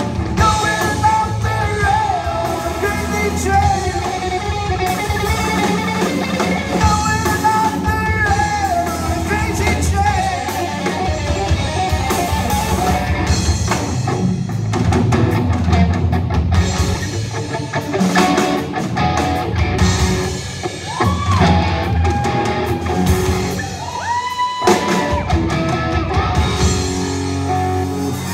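Live rock band playing a song: a singer over electric guitar, bass guitar and a drum kit.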